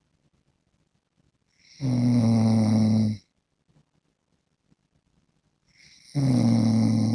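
A man lying face down snoring: two loud, pitched snores about four seconds apart, each lasting about a second and a half, with near quiet between them.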